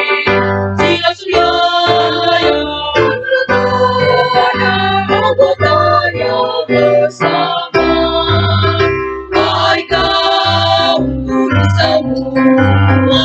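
Choir singing in parts, accompanied by an electronic organ or keyboard with a bass line that repeats throughout.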